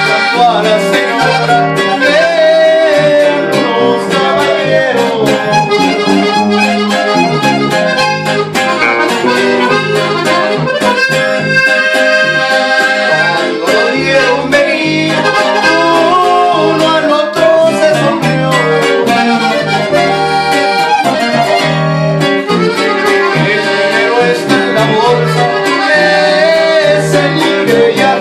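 Live norteño-style band playing: a button accordion carries the melody over strummed guitar and an electric bass line, with a man singing.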